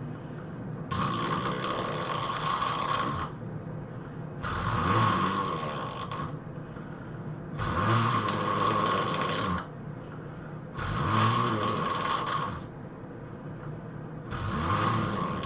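A person snoring heavily in a steady rhythm: loud snores of about two seconds each, roughly every three seconds, five in all, with quieter breathing between them.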